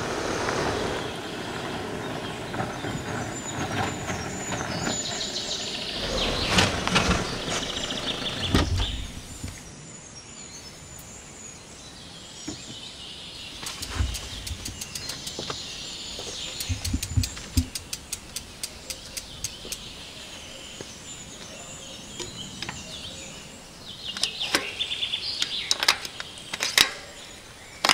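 A car drives along a dirt forest track amid birdsong. Then, with birds chirping, come scattered clicks and knocks of a mountain bike being handled, growing into a quick run of clicks near the end.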